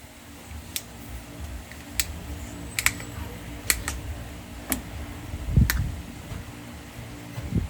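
Scattered sharp clicks and taps of a plastic container being handled, with a duller thump about five and a half seconds in.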